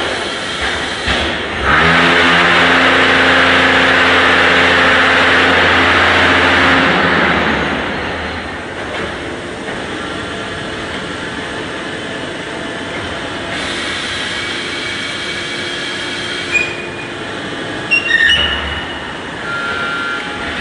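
Zenith 940 concrete paving block machine running in production: a loud steady pitched hum for about five seconds, then quieter steady machine noise with a few sharp metallic clanks near the end.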